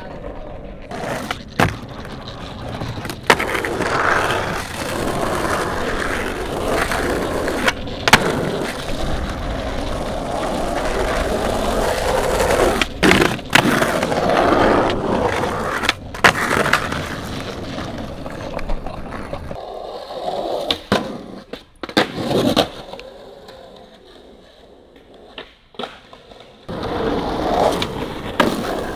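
Skateboard wheels rolling over asphalt, broken by several sharp clacks of the board popping and landing. There is a quieter stretch before the rolling picks up again near the end.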